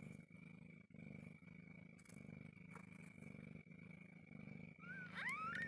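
Mother cat purring softly as she nurses her newborn kittens, a low rumble that pauses with each breath. Near the end a newborn kitten gives a few thin, rising squeaks.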